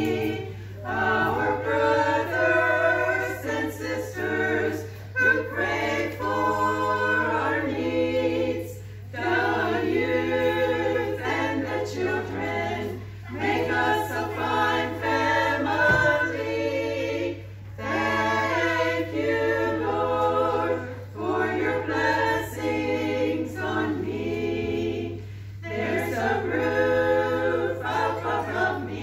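Small choir of older women singing together without accompaniment, in phrases a few seconds long with short breaks for breath. A steady low hum lies beneath the voices.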